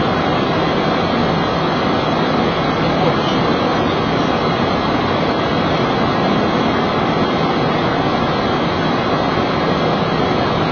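Steady, unbroken airflow and engine noise on a Boeing 737's flight deck in flight.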